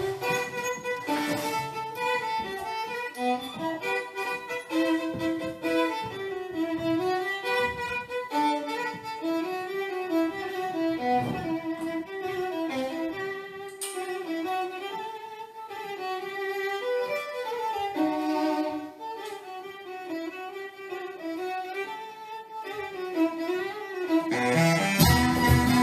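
Unaccompanied violin playing a slow, ornamented melody. About a second before the end, the rest of the band comes in, louder and with a deep low end.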